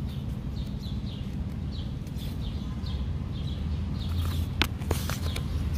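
Hand handling and turning the paper pages of a comic book, with a few sharp paper clicks about four and a half to five seconds in. Underneath are a steady low hum and a bird chirping repeatedly, about two short chirps a second.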